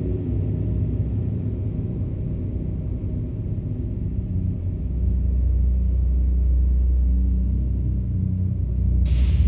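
Experimental drone music from analog synthesizers: a deep, rumbling low drone with steady bass tones that grows louder about halfway through, and a short burst of hiss near the end.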